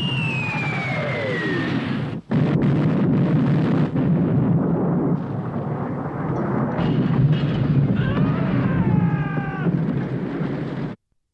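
Sustained heavy rumble of cannon fire and battle din, with a falling whistle in the first two seconds. It cuts off abruptly near the end.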